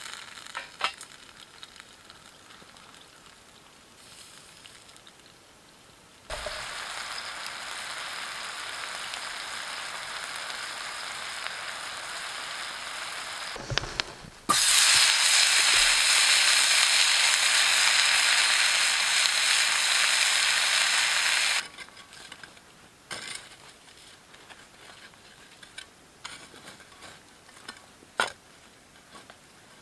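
Food sizzling in hot oil in a small cast-iron skillet over a wood-burning camp stove. The sizzle starts suddenly about six seconds in, turns much louder about halfway when food goes into the oil, and stops suddenly at about twenty-two seconds. Before and after it, only a few faint clicks and crackles.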